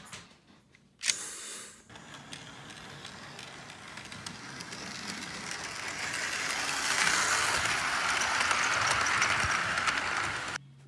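Toy steam locomotive running on plastic track: its motor and gears make a steady mechanical whir with rapid clicking. There is a sharp click about a second in, the sound grows louder from around halfway, and it cuts off suddenly near the end.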